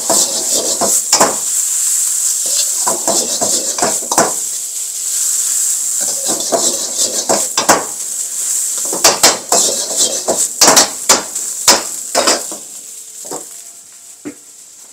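A metal ladle and wok spatula scrape and clang against a wok as fried rice is tossed and stirred over a steady sizzle, working in the dark soy sauce. The clatter comes thickest a little past the middle and dies away about two seconds before the end, leaving a fainter sizzle.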